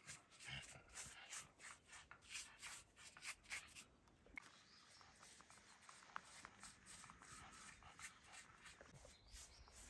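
A paintbrush scrubbing wood stain onto rough old brick: faint scratchy brush strokes, about two to three a second, growing fainter about four seconds in.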